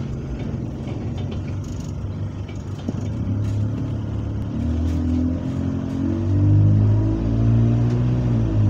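Diesel engine of a single-deck bus, heard from the rear seats inside the bus, pulling the bus along. It runs steadily for the first few seconds, then rises in pitch and grows louder from about halfway as the bus accelerates, at its loudest near the end.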